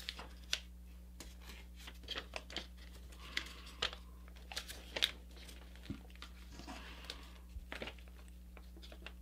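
Paper being folded by hand: faint, irregular crinkles and crackles as the existing creases of a square sheet are reversed into a sink fold, over a steady low hum.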